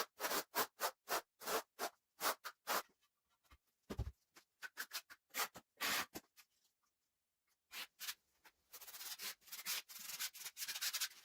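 Grout being worked over porcelain floor tiles, a tool scraping and rubbing across the tile face in short repeated strokes. The strokes run about three a second at first, then come in looser groups, with a denser run of scraping near the end.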